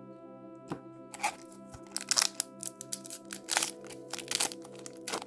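Foil booster pack wrapper crinkling and being torn open: a run of sharp, irregular crackles starting about a second in, over steady background music.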